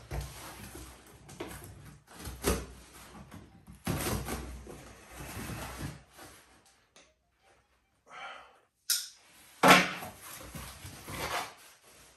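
Cardboard box being opened and unpacked by hand: the flaps scrape and rustle and the packing wrapped around the contents crinkles, in irregular bursts. Two sharp knocks of the box being handled, one about two seconds in and a louder one near the end.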